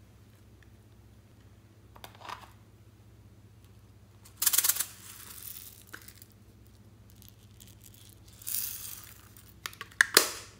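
Small plastic toy compacts handled over a tray of slime: a few short rattling, rustling bursts, then several sharp plastic clicks near the end.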